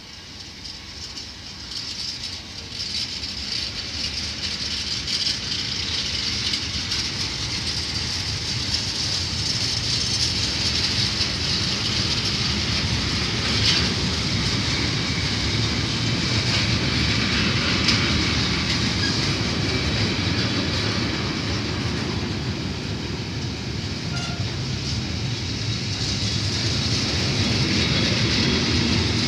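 A freight train's container flat wagons roll past with steady wheel-on-rail noise, rattling and clickety-clack. The sound grows louder over the first several seconds, then holds steady.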